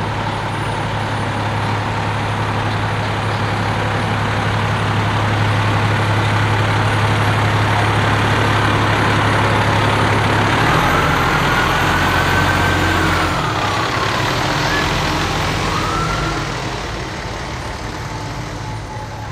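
An aerial ladder fire truck's diesel engine running as it drives slowly past close by, growing louder as it comes near and fading after it passes. A short siren wail rises and falls about two-thirds of the way through, with a brief second one just after.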